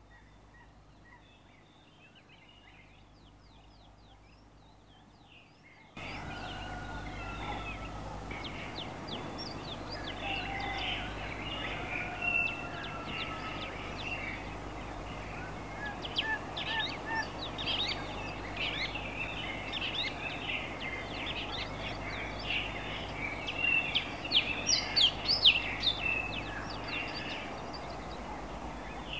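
A flock of small birds chirping and calling, a busy chorus of many short high calls that comes in abruptly about six seconds in and gets louder and busier near the end. A steady low hum runs underneath.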